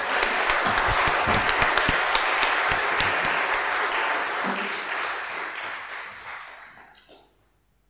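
Congregation applauding, a steady round of clapping that dies away about six to seven seconds in.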